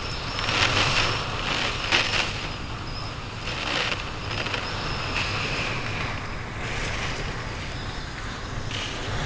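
Strong typhoon wind blowing in gusts, a loud rushing noise that swells and eases every second or two.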